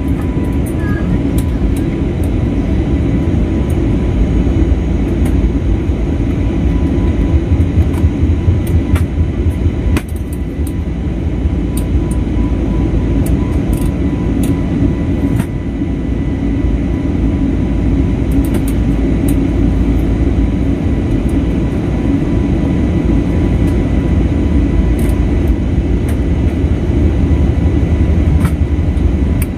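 Airliner cabin noise in flight: the engines and rushing air making a loud, steady low drone, with a thin steady whine over it.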